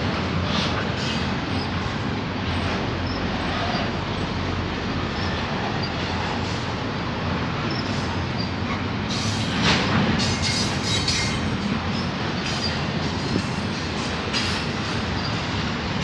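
Double-stack intermodal freight cars rolling past on jointed track, a steady rumble and rattle of steel wheels on rail. A brief, sharper high-pitched screech comes about ten seconds in.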